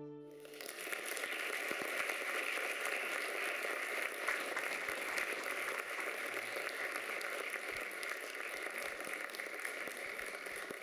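The last held note of the fiddle dance music dies away, and under a second in the audience breaks into steady applause that continues throughout.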